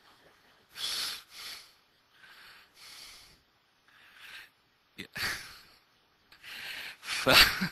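A man chuckling and breathing softly into a handheld microphone: a string of short breathy puffs about a second apart, with a louder burst near the end.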